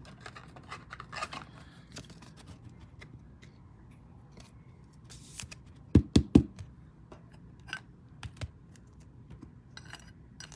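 Trading cards and card packs being handled: faint scraping and rustling with small clicks, and a quick cluster of three or four loud knocks about six seconds in.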